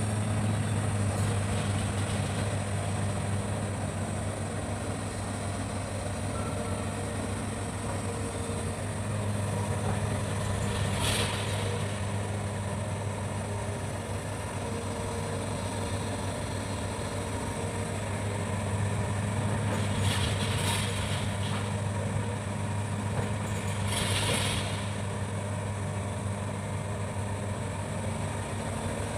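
Hitachi excavator's diesel engine running steadily, with short bursts of hiss three times.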